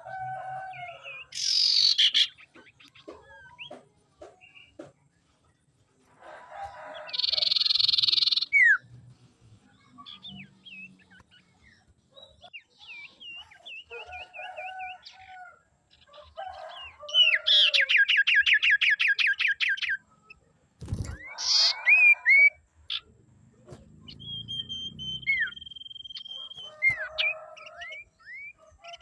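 Common iora calling in a varied sequence: short whistled slurs, loud harsh chattering bursts, a long fast trill of evenly repeated notes past the middle, and a held steady whistle later on.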